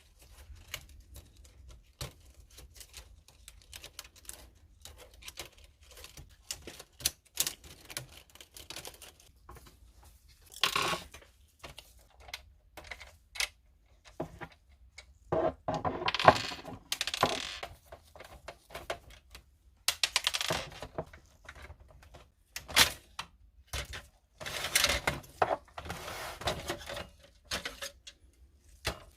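Plastic and metal parts of a Canon printer clicking, tapping and rattling as it is taken apart by hand, with several longer scraping rattles in the second half.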